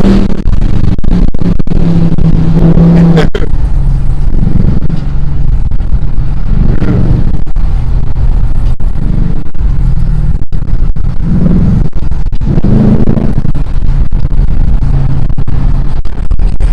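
Dodge Charger R/T's 5.7-litre Hemi V8, fitted with a new cold air intake, running loudly as the car is driven: a continuous deep engine drone.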